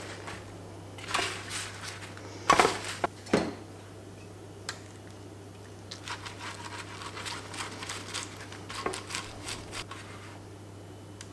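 Crumpled parchment paper crinkling and rustling as it is pressed into a metal baking tray and rubbed over by hand. The loudest, sharpest rustles and knocks come in the first few seconds, and softer crinkling follows later.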